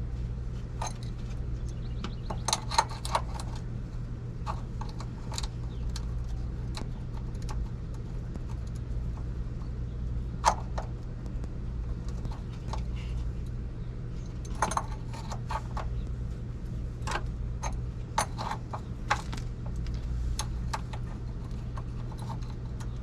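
Adjustable wrench clinking and knocking against the motorhome's oil pan drain plug, with irregular sharp metal clicks, over a steady low hum.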